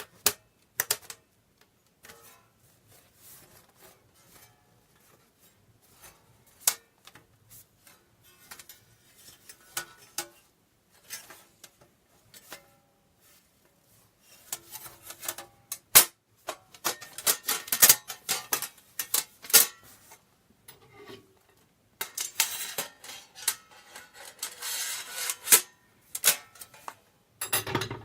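Metal parts of a campfire stand clinking, clicking and scraping as they are handled and fitted together: scattered single clinks at first, then denser clatter and sliding metal from about halfway through.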